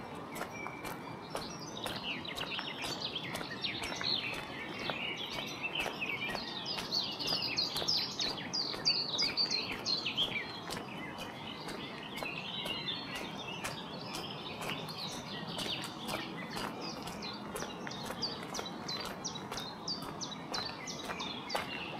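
Several birds chirping and singing, busiest in the first half, over a steady rushing background, with footsteps crunching on gravel as a run of small sharp ticks.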